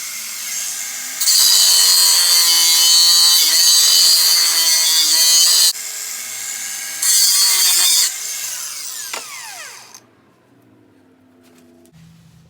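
Angle grinder with a cut-off wheel cutting steel, loud in two long passes and running lighter in between, then switched off and spinning down with a falling whine about ten seconds in.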